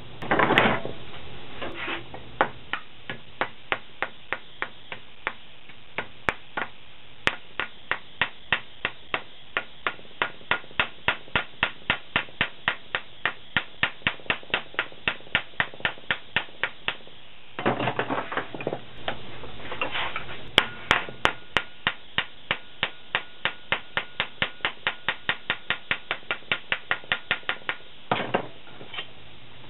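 A hammer tapping a sheet-metal mount clamped in a bench vise, bending its lip over and work-hardening the metal: a long, steady run of sharp metallic blows at about three a second. The run is broken by a short, louder clatter at the start, again a little past halfway and near the end.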